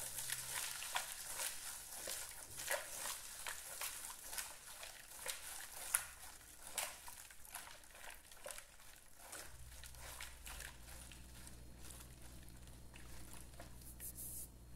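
Red silicone spatula stirring caustic soda into water in a plastic basin to dissolve it: faint quick scrapes, clicks and small splashes against the plastic, thinning out after about nine seconds.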